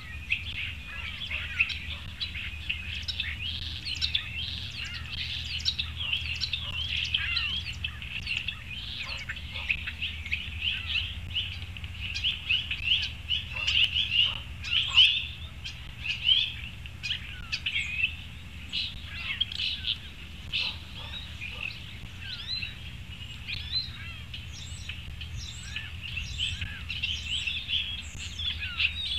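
Many small songbirds chirping and calling at once, their quick overlapping chirps densest and loudest about halfway through, over a steady low hum.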